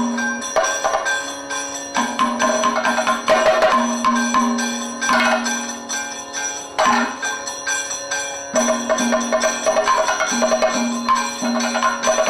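Kathakali percussion accompaniment: drums with the ringing metal strokes of gong and hand cymbals beating a fast, even rhythm over a held drone tone.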